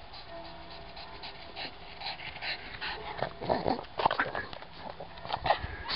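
A pug breathing hard right at the microphone after running up a hill, in loud irregular gasps from about three seconds in. Fainter repeated sounds come before that as it approaches.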